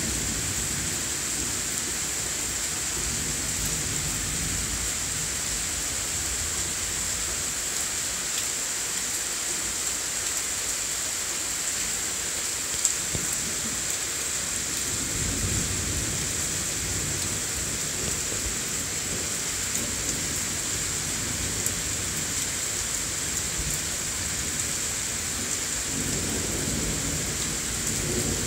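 Heavy thundershower rain falling steadily, with low rolling thunder rumbling underneath, swelling about halfway through and again near the end.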